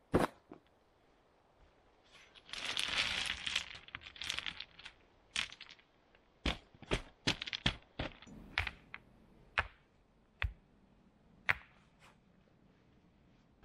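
Stones knocking against stones: a loud knock at the start, a short rattling, crunching spell of rocks shifting against each other, then a string of single sharp clacks as stones are set down one at a time.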